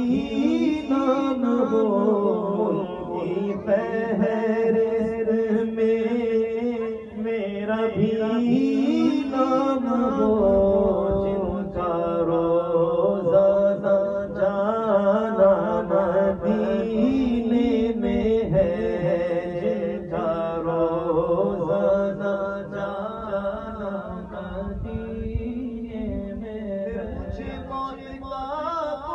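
A man singing a naat, an Urdu devotional poem in praise of the Prophet, with no instruments, in long drawn-out notes that waver and bend in pitch.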